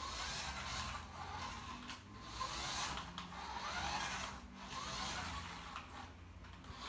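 Small electric motor of a radio-controlled toy Porsche 911 GT3 RS whirring faintly as the car drives across a wooden floor, rising and falling several times.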